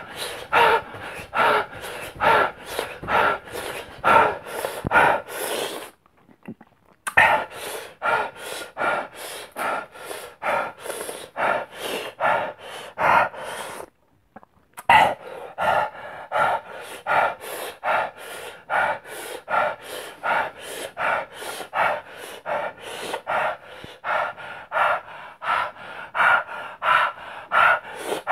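A man panting hard and fast, short sharp breaths at about two to three a second, with two brief pauses. It is his reaction to the burn of the Paqui One Chip Challenge super-hot chip.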